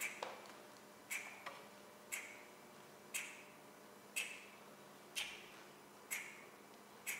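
Steady ticking like a clock: a sharp, short-ringing tick about once a second, with a couple of softer, lower knocks between the first ticks. A faint steady hum runs underneath.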